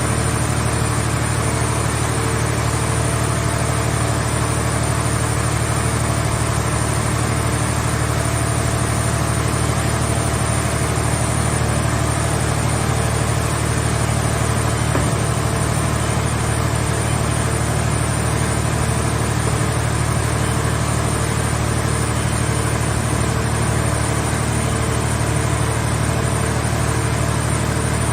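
Power-unit engine of a towable hydraulic scrap car baler running at a steady idle, with an even low hum.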